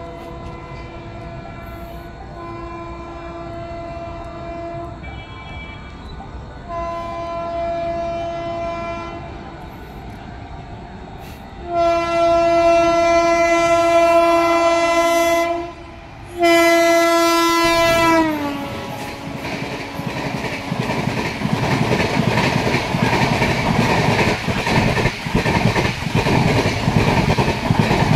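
WAP-7 electric locomotive sounding its horn in about five blasts as it approaches, each louder than the last. The final blast drops in pitch as the engine passes. Then the Rajdhani's coaches rush by at about 120 km/h with rumbling, clattering wheels on the rails.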